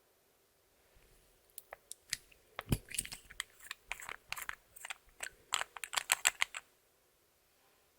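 Clear slime being squeezed and poked by hand, giving a quick, irregular run of sticky clicks and crackles that lasts about five seconds and then stops.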